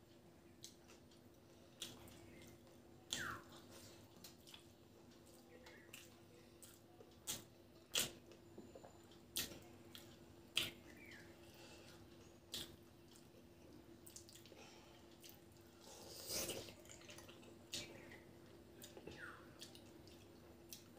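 Wet, sticky clicks and smacks of eating curry and rice by hand: fingers squishing food and open-mouthed chewing, scattered irregularly, over a faint steady hum.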